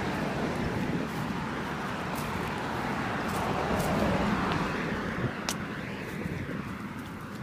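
Road traffic noise from passing cars: a steady rush that swells about four seconds in and then eases off, as a vehicle goes by.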